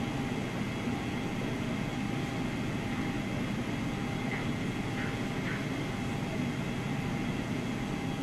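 Heavy diesel engines of a Liebherr R 964B crawler excavator and a dump truck running steadily as the excavator loads the truck. A few faint short high squeaks come about halfway through.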